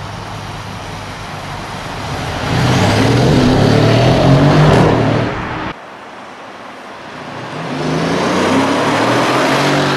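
Mercedes ML63 AMG's 5.5-litre biturbo V8 accelerating past with its exhaust note building loud, then cut off suddenly about six seconds in. A second pass follows, swelling up again near the end.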